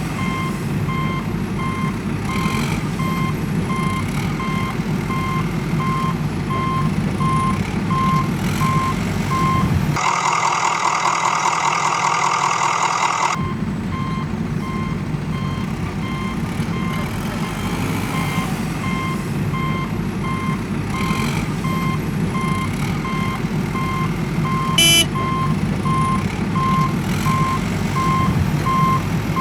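Heavy vehicle's reversing alarm beeping steadily over a low diesel-engine rumble. About ten seconds in, both stop for about three seconds while a higher warbling buzz plays, then the beeping and rumble resume. A short click comes near the end.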